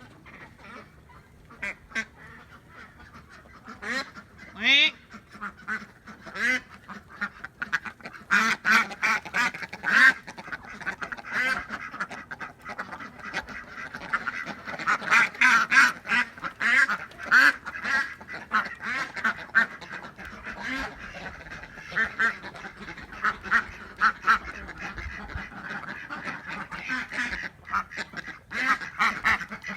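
Domestic duck quacking over and over in quick runs of short calls, sparse at first and busier from about eight seconds in.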